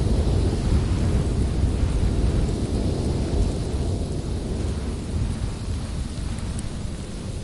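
Rolling thunder in a storm, a deep rumble that slowly dies away, over a steady hiss of rain.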